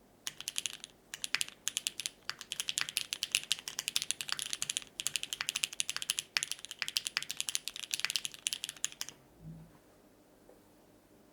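Fast typing on a Keycult No. 2/65 mechanical keyboard with lubed, filmed linear Cherry MX Black switches on an aluminium plate and GMK keycaps: a quick run of keystroke clacks with brief pauses, stopping about nine seconds in. A soft low thump follows shortly after.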